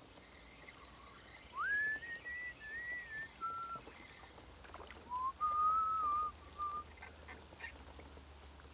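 A man whistling a slow tune in short phrases of clear, held notes: a phrase that glides up into it about one and a half seconds in, and a lower phrase around five to seven seconds in.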